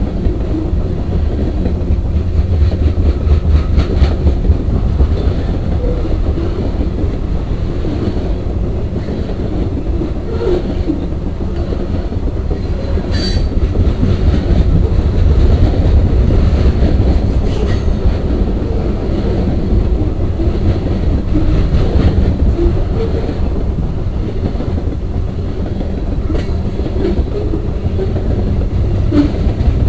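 Coal train's freight cars rolling past close by: a loud, steady rumble of steel wheels on the rails, with wheel clatter and a few sharp metallic clanks, the clearest about 13 seconds in.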